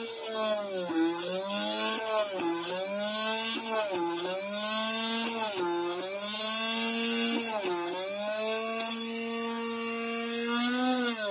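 Small DC motor of a homemade mini PCB drill press spinning a fine drill bit with a steady whine. Its pitch dips and recovers every second or two as the bit is pressed into a copper-clad circuit board to drill holes.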